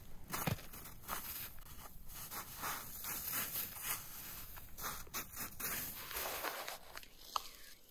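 Bare hands brushing and scraping packed snow off a mound to uncover a buried tray, in a run of short, uneven scrapes.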